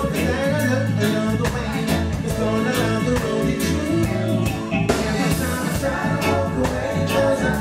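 Live band music with a steady drum beat, bass and keyboards, with a male lead vocal and female backing singers.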